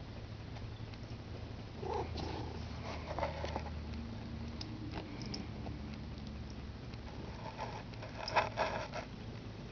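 Long-haired tabby cat purring steadily while it bites and mouths a small toy, with a few short scratchy chewing noises, the loudest near the end.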